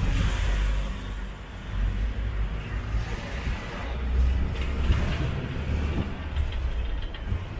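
Tuk-tuk on the move: engine and road noise as a steady low rumble, swelling and easing a few times.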